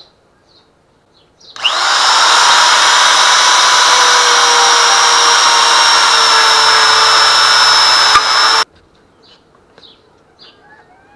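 RotoZip spiral saw starting about a second and a half in and running at a loud, steady high-pitched whine as its bit plunges into and routes out a wooden 2x4, then cutting off suddenly about seven seconds later.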